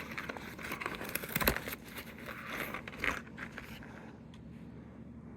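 Packaging of a Lego minifigure pack crinkling and rustling as it is handled and its contents taken out, with irregular crackles that die down after about four seconds, leaving only a few faint ticks.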